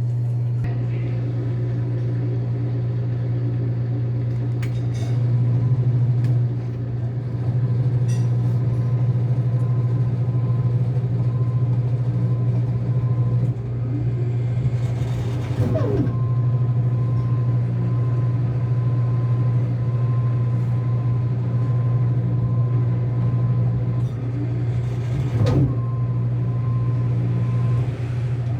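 Enxuta Euromatic washing machine running during its rinse and spin cycle: a steady low motor hum with a thin steady whine above it. The sound is broken by a brief surge, sweeping in pitch, about halfway through and again near the end.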